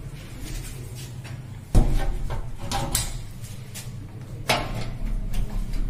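Knocks, clicks and rattles of an aluminium door frame and its fittings being handled, with a sharp knock a little under two seconds in and another about halfway through, over a low steady hum.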